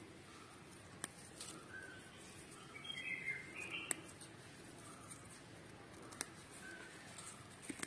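Faint birds chirping now and then, busiest near the middle, over a light outdoor hiss, with three sharp clicks.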